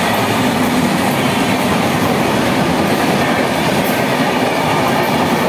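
Indian Railways passenger train coaches passing close by: the wheels run on the rails with a steady, loud rattle and rumble.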